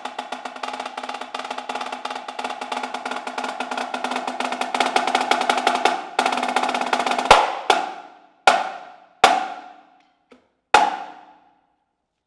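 Marching snare drum solo: fast, dense sticking that builds in loudness for about six seconds, then a series of loud accented single strokes, each left to ring, with a light tap just before the last. The solo ends with that final stroke, about eleven seconds in.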